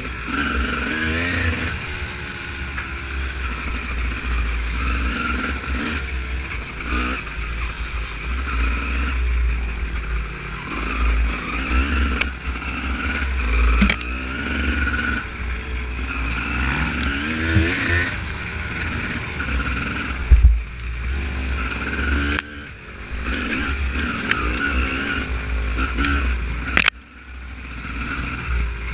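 Honda CR250 two-stroke motocross bike ridden off-road, the engine revving up and down over and over as the throttle is worked, over a heavy low rumble. Near the end the engine sound drops off sharply for a moment and then picks up again.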